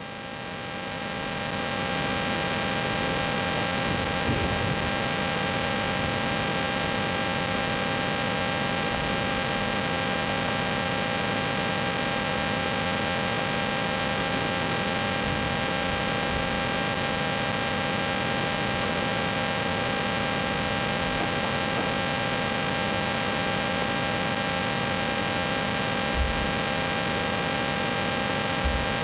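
Steady electrical hiss and hum with a few thin, high steady tones, swelling over the first two seconds as the recorder's automatic gain rises in the silence, then holding level. Two faint low knocks near the end.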